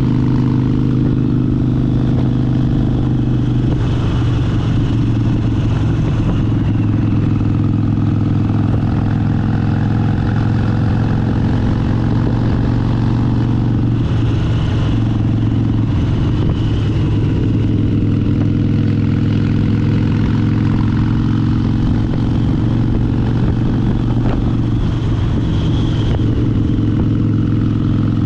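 Harley-Davidson Sportster 72's air-cooled 1200 cc V-twin engine running at a steady cruising speed on the move, its pitch holding nearly constant with road and wind rush underneath.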